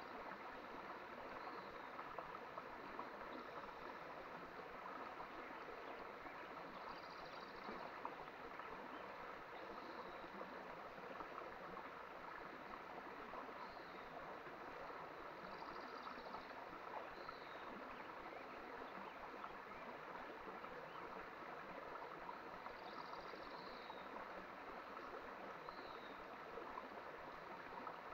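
Small mountain stream running steadily over rocks. A high two-part call, a short arched note followed by a quick falling one, repeats every few seconds over it.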